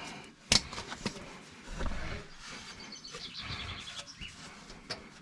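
Faint bird chirping, a short quick run of high notes about three seconds in, with a few sharp clicks and knocks, the loudest about half a second in.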